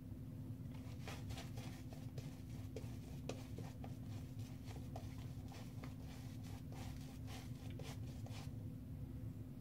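Synthetic-knot shaving brush scrubbing lather onto a face in quick scratchy strokes, about three a second, starting about a second in and stopping shortly before the end.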